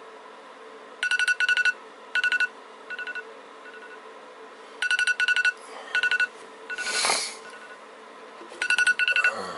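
Smartphone alarm ringing: groups of quick, high electronic beeps, each group fading away in echo-like steps, starting about a second in, again about five seconds in and once more near the end. A brief rushing noise swells and fades about seven seconds in.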